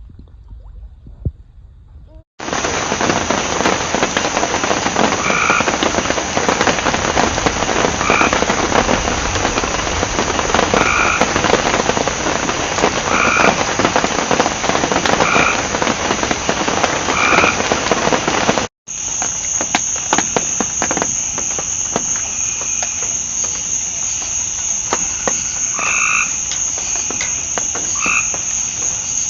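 Chorus of frogs and insects: a steady high-pitched insect drone, with a frog calling about every two and a half seconds over the dense chorus. It begins abruptly about two seconds in and breaks off briefly near nineteen seconds, then carries on.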